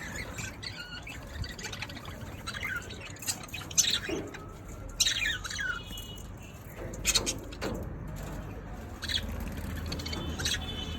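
Budgerigars chirping and squawking in short, irregular calls.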